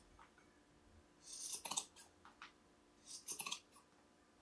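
Scissors snipping through the macrame cord fringe, two quiet cuts about a second and a half apart, each ending in a sharp click as the blades close.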